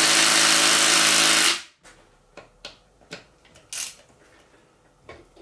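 Cordless impact wrench running steadily on a 10 mm bolt inside a Ford E4OD transmission's bellhousing, then cutting off about a second and a half in; the socket is not biting fully onto the bolt. Light metallic clicks of parts and tools being handled follow, with one brief sharper clatter near the end.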